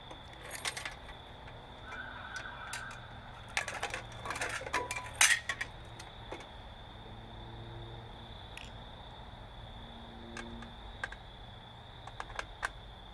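Metal parts of a light fixture clicking and clattering as it is taken apart by hand. There are scattered clicks, a burst of rattling about four seconds in, the loudest clank just after five seconds, and a few more clicks near the end. A faint steady high whine runs underneath.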